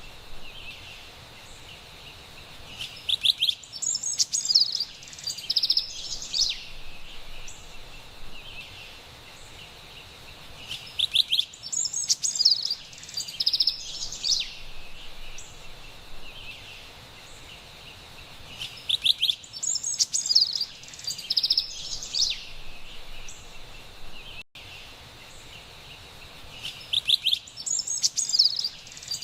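Carolina wren singing, bursts of bright rapid song phrases recurring about every eight seconds over a steady high hiss of forest ambience.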